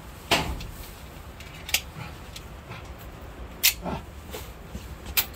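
Four pistol shots fired at an indoor range, sharp cracks spaced about one and a half to two seconds apart, the last round of a timed string of fire.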